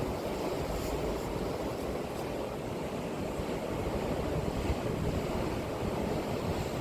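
Sea waves washing onto the shore in a steady, continuous wash, heaviest in the low rumble.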